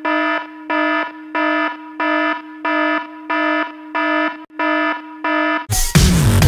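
Electronic alarm beeping: nine identical buzzy beeps, evenly spaced at about one and a half a second, stopping shortly before the end.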